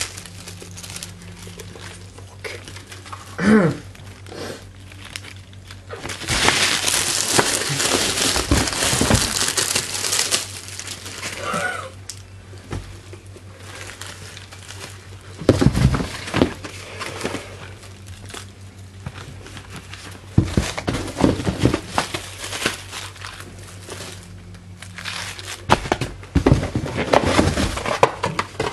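Packaging being crinkled and rummaged through by hand while unboxing, with irregular stretches of rustling and scattered knocks of items being handled, over a faint steady low hum.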